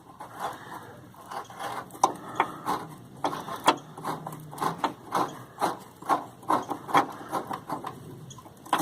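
Ratchet wrench clicking in short strokes, about three clicks a second, as it backs out a loosened body-mount bolt.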